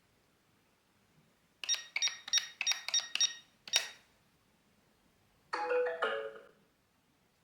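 eufy home alarm system beeping: a quick run of about seven short high beeps like keypad presses, then a single sharper beep, and a few seconds in a two-note electronic chime.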